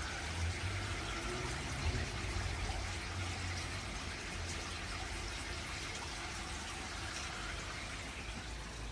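Water running and pouring steadily into a pond, an even splashing rush with a low hum underneath.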